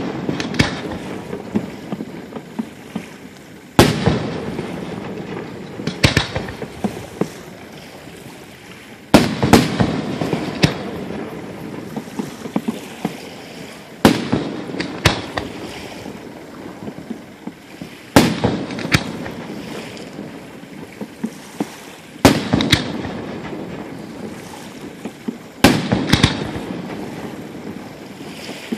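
Aerial fireworks bursting overhead: a sharp boom every few seconds, about seven in all, each followed by a trail of crackling pops that dies away.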